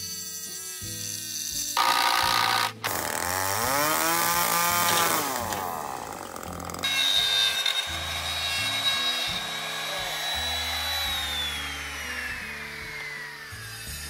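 Power tools working on a wooden railway sleeper. First a drill boring into it, its pitch sagging and picking up again. Then a handheld trim router cuts a recess about 2 cm deep, its high whine steady at first, then falling as the motor winds down over the last few seconds. Background music plays underneath.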